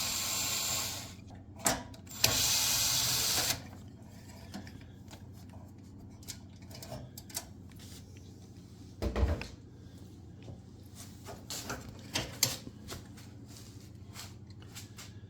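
Power drill/driver running to back out two small screws: one run ending about a second in and a second from about two to three and a half seconds in. After that come light clicks and taps of parts being handled, with one low thump about nine seconds in.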